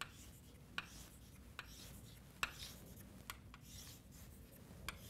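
Chalk on a blackboard: faint, short taps and scrapes, about seven of them at roughly one a second, as short vertical lines are drawn.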